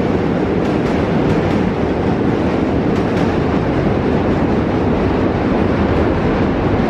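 A subway train crossing the Manhattan Bridge's steel deck overhead, heard from beneath the bridge as a loud, steady rumble.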